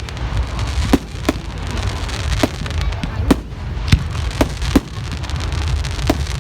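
Fireworks going off: a string of sharp bangs, about eight of them at irregular intervals of roughly half a second to a second, over a steady low background rumble.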